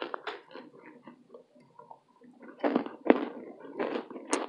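Close-up chewing and crunching of baked cornstarch: irregular crackly bites and chews that grow louder and denser about halfway through.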